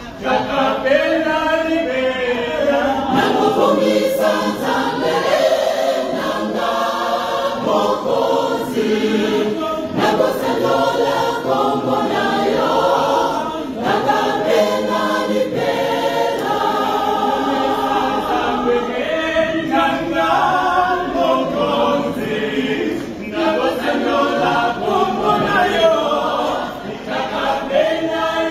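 Mixed church choir of men and women singing together at full voice, the phrases running on with only short breaks.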